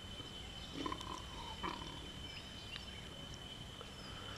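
Faint short grunts from bearded pigs, twice, about a second in and again shortly after, over a steady high insect drone.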